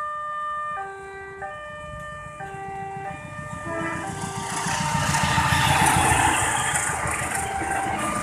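Railway level-crossing warning alarm sounding two alternating tones, switching a little under once a second, with the barriers down. From about four seconds in, the rumble and rush of an approaching passenger train builds up and drowns the alarm as the train reaches the crossing.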